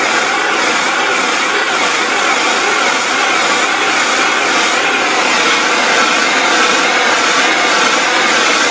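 MAP gas torch burning with a steady roaring hiss as its flame heats a solder-filled fusion battery terminal.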